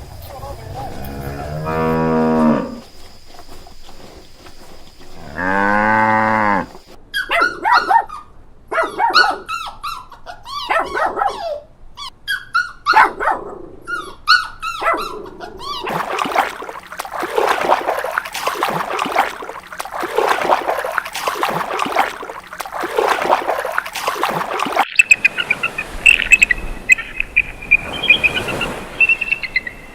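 Animal calls from several animals in turn: two long, drawn-out calls, about two and six seconds in, then a run of short high calls, then a long stretch of rapid noisy grunting-like bursts, and a high repeated chirping near the end.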